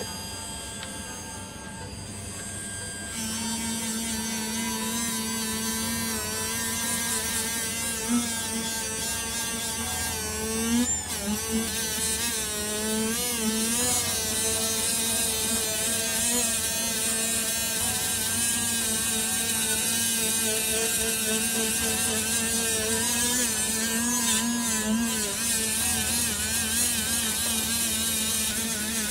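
Handheld electric rotary tool spinning a buffing wheel on a metal medal coated with liquid polishing compound: a steady motor whine that comes in about three seconds in and wavers in pitch now and then as the wheel bears on the medal, during mirror polishing.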